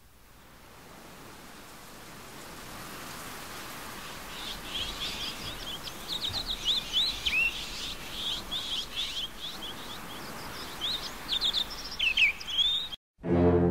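Birds chirping over a steady outdoor hiss that fades in; many short, quick chirps and trills begin about four seconds in and carry on until they cut off abruptly near the end.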